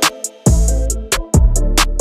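Background music: an electronic hip-hop style track with a heavy bass drum, a sharp snare and hi-hat, and a synth melody. It drops out for half a second just after the start, then the beat comes back in.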